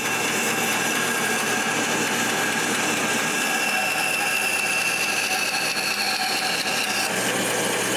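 Bandsaw running steadily while cutting the outside shape of a wooden tray handle.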